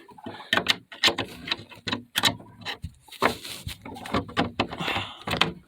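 A padlock being fumbled into the latch of a pen gate: a run of irregular metallic clicks, knocks and rattles.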